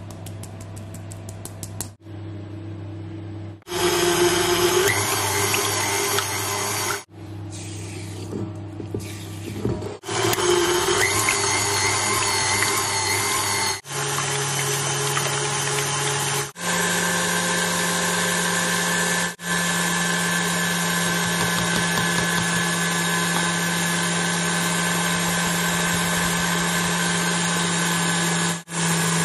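Electric stand mixer running, its wire whisk beating eggs and sugar in a steel bowl, with a steady motor whine heard in several short cuts. The whine steps up in pitch a little past halfway and holds. The first few seconds are quieter.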